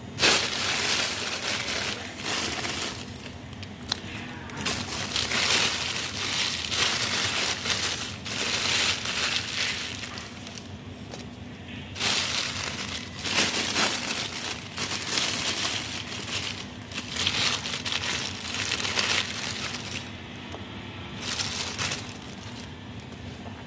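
Water boiling hard in a stainless steel pot full of pineapple peels: a bubbling, crackling hiss that surges and eases every few seconds.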